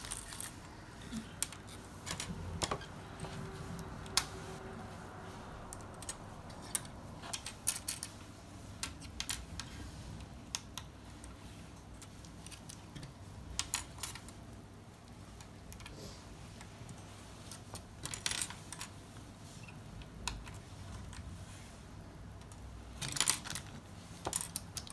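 Small plastic kit parts of a Strandbeest model clicking and tapping as pieces are slotted in and turned by hand to lock: scattered light clicks throughout, busier in a few short bunches.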